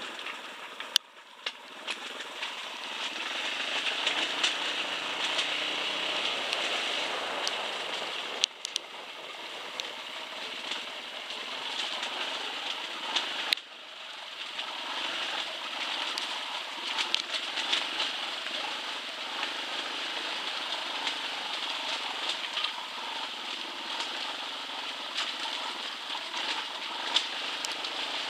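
Dirt bike riding down a rough, rocky trail: a steady noisy rush of engine, wind and tyres, peppered with many small clicks and knocks from the rocks, broken by a few abrupt drop-outs.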